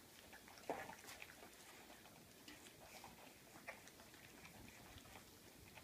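Puppies eating from shallow metal pans: faint, scattered clicks and taps of mouths against the pans, with one louder knock a little under a second in.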